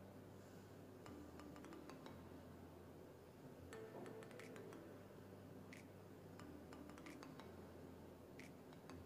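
Near silence: faint room tone with a low hum and a few scattered soft clicks.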